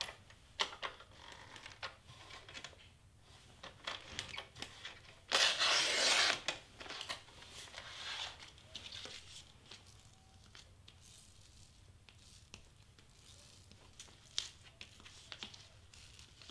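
Clear adhesive film and cardstock crinkling and rustling as a piece is worked through a Xyron Creative Station adhesive machine, with one loud tearing rasp lasting about a second about five seconds in. Near the end, a plastic squeegee rubs over the film to press the adhesive on.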